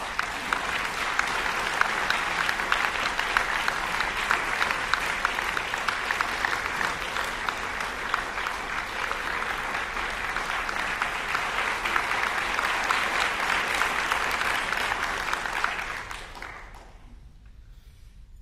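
Audience applauding, a dense, even clapping that dies away near the end.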